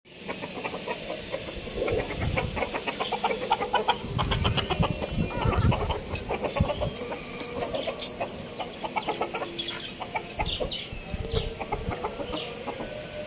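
Chickens clucking in short, repeated calls.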